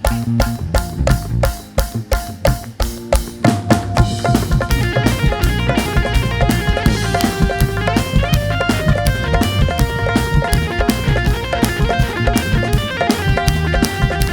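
Live band instrumental with no singing: a drum-kit beat of steady, evenly spaced hits over bass. About three and a half seconds in, the full band comes in with melodic lines over the drums.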